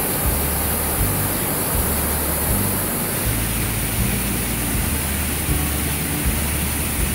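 Steady rushing noise of a mountain stream cascade, water pouring over rocks.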